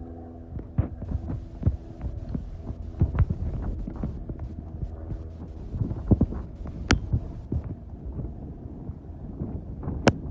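Irregular dull thumps and sharp knocks, with a low steady hum that fades out about a second in.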